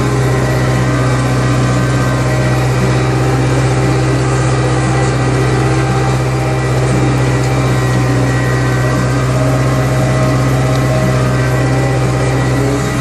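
Tractor engine running steadily under load while pulling a plough through the soil, a constant drone heard from inside the cab.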